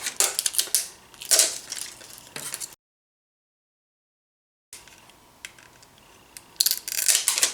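Hard plastic toy capsule being handled and pried at: irregular clicks, crackles and small knocks. The sound drops out to dead silence for about two seconds midway, then the clicking resumes and grows busier near the end.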